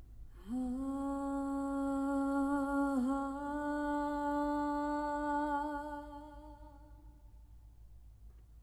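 A recorded female singer holding one long sung note, played through a Pioneer carrozzeria DEH-970 car stereo inside the car's cabin. The note comes in about half a second in and slides up slightly as it starts. It wavers briefly about three seconds in, then fades away near the end.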